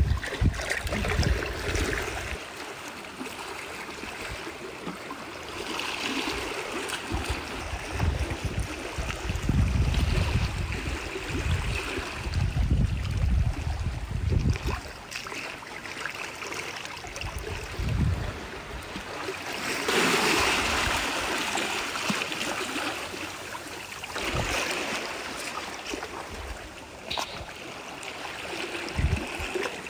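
Wind buffeting the microphone in uneven low gusts over a steady wash of trickling shallow water.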